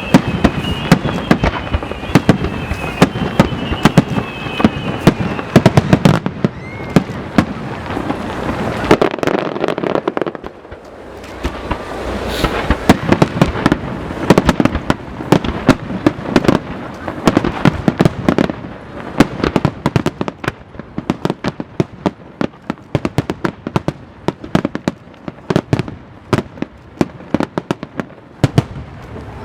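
Fireworks display: a dense barrage of bangs and crackling reports, with several whistles falling in pitch during the first few seconds.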